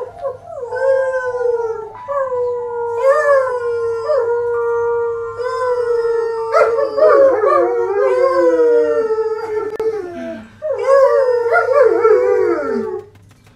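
German Shepherd howling in long, wavering notes broken by short pauses. From about halfway a second howling voice joins in and the two overlap.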